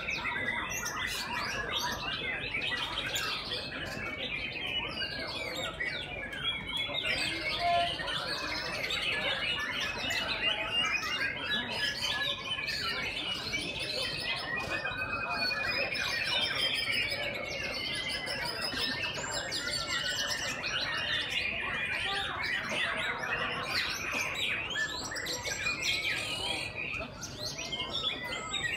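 Many caged white-rumped shamas (murai batu) singing at once in a contest, a dense, continuous tangle of whistled and chattering song, with one long falling whistle about halfway through.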